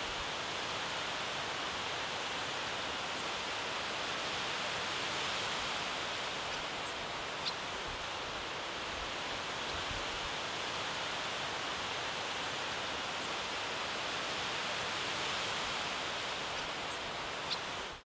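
Wind blowing through forest trees, a steady hiss of rustling leaves that swells and eases slightly. Two brief high chirps cut through, one about halfway and one near the end.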